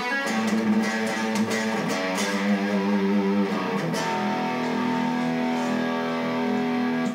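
Chapman ML7 seven-string electric guitar played through an overdriven amp: picked chords for a few seconds, then one chord left ringing for about three seconds and cut off sharply.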